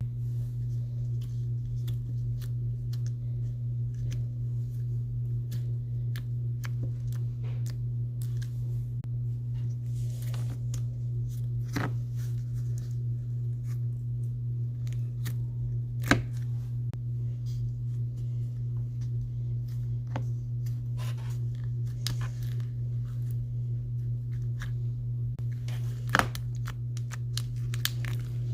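Slime being squished and stretched by hand, giving scattered small pops and crackles, a few sharper ones about halfway and near the end, over a steady low hum.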